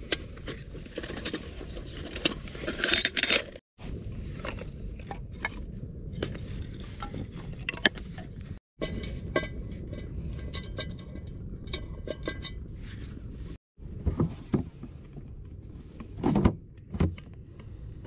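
Clinks, taps and rustling of a titanium camping pot being taken out of its cloth pouch and set down among firewood, with a few short metallic rings. The sound drops out completely three times for a moment, in short takes.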